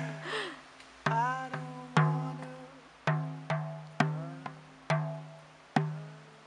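Hide-headed frame drum struck with a beater in a slow, uneven beat of about one stroke a second, some strokes in quick pairs; each stroke leaves a deep tone ringing and dying away.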